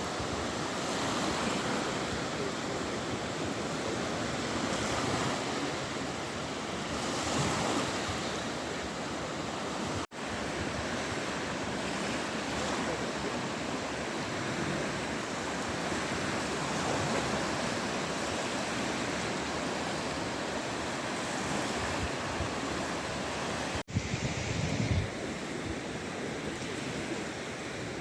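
Sea waves washing onto the shore, a steady surf noise that swells and eases, cutting out briefly twice.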